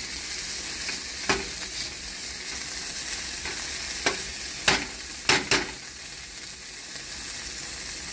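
Diced onion, garlic and ginger frying with shrimp paste in a nonstick pan, a steady sizzle as the aromatics are sautéed. A metal spoon stirs them, scraping and clicking against the pan about five times, mostly in the middle.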